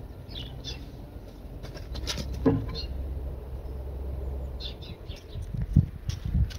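Outdoor garden ambience: small birds chirping now and then over a low steady rumble, with one short louder sound about two and a half seconds in and a few soft low thuds near the end.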